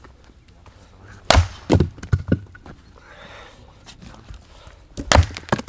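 Hatchet chopping into a log on a wooden chopping block, splitting firewood: two hard chops about a second and a half in, a few lighter knocks, then two more hard chops near the end.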